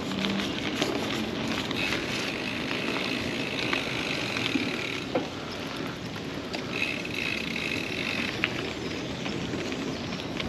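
KTM Scarp Elite mountain bike ridden slowly off-road: steady tyre and rolling noise with scattered small clicks and rattles. Two stretches of higher buzzing run a few seconds each, about two seconds in and again near seven seconds.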